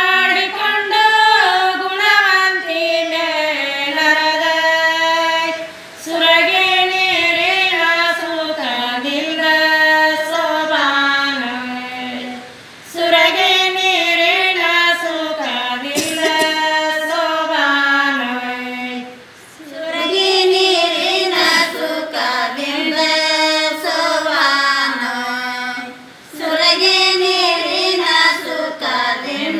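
Women singing a Kannada sobane pada, a folk wedding song, together and unaccompanied, in long phrases of six to seven seconds with a brief break for breath between each.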